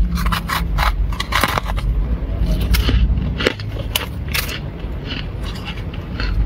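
Flaky freezer frost crunching and crackling as a fingertip presses and scrapes into it. A rapid run of crisp crackles comes first, turning sparser and softer after about four and a half seconds, over a steady low hum.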